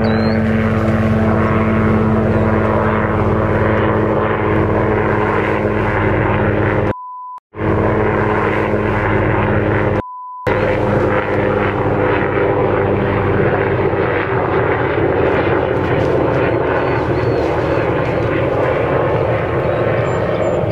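Low-flying airplane drones steadily overhead, its engine hum filling the whole stretch. Twice in the middle the sound cuts out to a short beep.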